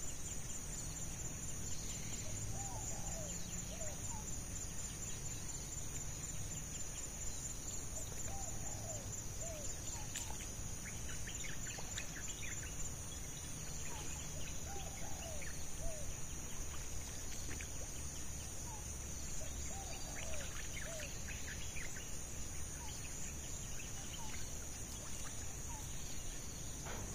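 Forest ambience: a steady high-pitched insect drone, with a bird repeating a short call of a few quick notes about every six seconds and other faint high chirps scattered through.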